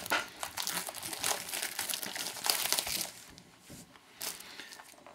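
Cellophane shrink wrap being torn and peeled off a trading card box, crinkling steadily for about three seconds, then fading to a few lighter rustles and a click.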